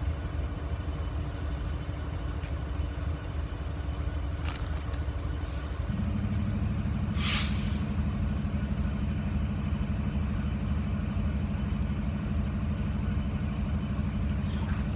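Steady low engine rumble of a motor vehicle running nearby, with a pulsing hum coming in about six seconds in and holding. A short hiss sounds about seven seconds in.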